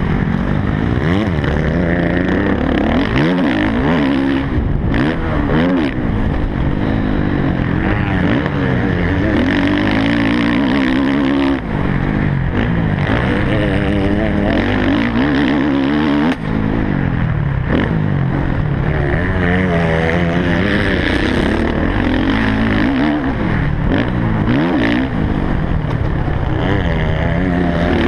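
Motocross bike engine heard close up from the bike while racing, its pitch rising and falling continuously with throttle and gear changes. The level drops briefly twice near the middle.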